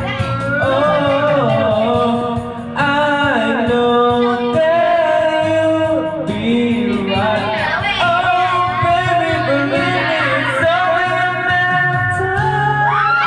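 A solo singer holding long, wavering notes over instrumental backing music.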